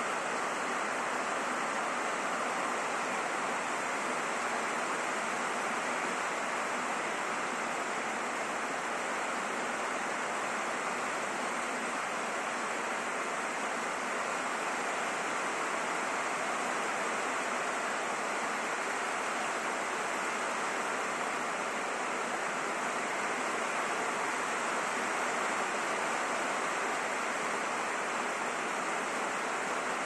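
Steady rain hitting a roof, an even, unbroken hiss of drops with no single hits standing out.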